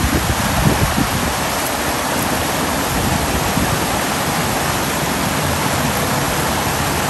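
River water spilling over a rocky ledge and churning into white water, a steady rushing.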